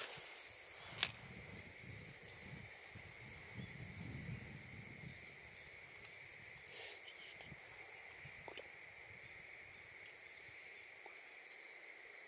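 Faint outdoor ambience with a steady high-pitched drone throughout, a sharp click about a second in, and low rustling and handling noise over the first few seconds.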